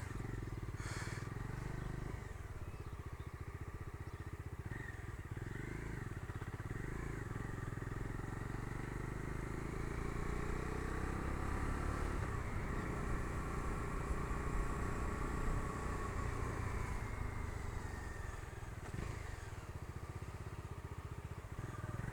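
Bajaj Dominar 250's single-cylinder engine running while the motorcycle is ridden, its note rising a little in the middle and easing off toward the end.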